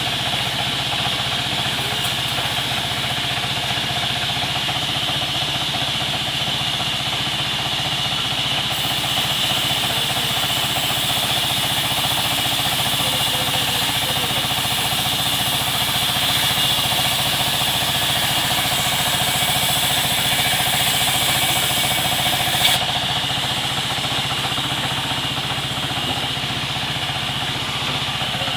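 Sawmill machinery running steadily with a high whine. A harsher, hissing layer comes in about nine seconds in and stops suddenly about twenty-three seconds in.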